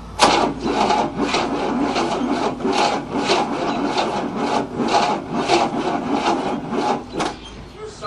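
Starter cranking the 1967 Cadillac's 429 V8 slowly, with about two strokes a second, without the engine catching; the cranking stops near the end. It is turning over too slowly to start, on a weak battery.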